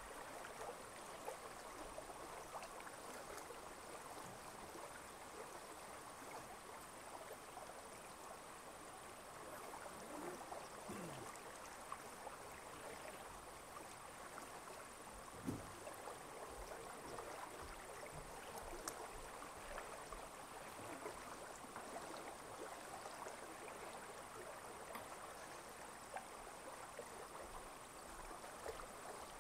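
Faint lakeside ambience: soft, even water noise with a thin, steady high tone and a few faint low sounds about ten and fifteen seconds in.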